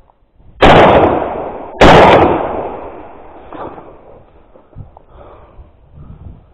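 Two hunting-rifle shots fired very close to the microphone, about a second apart, each followed by a long fading echo.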